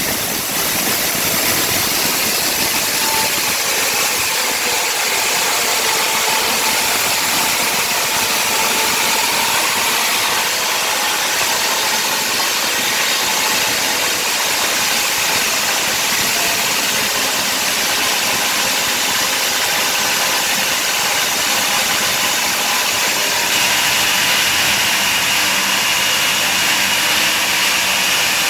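Power cutting tool running steadily as it cuts into concrete, a loud hissing grind over a faint motor whine; a higher tone comes in near the end.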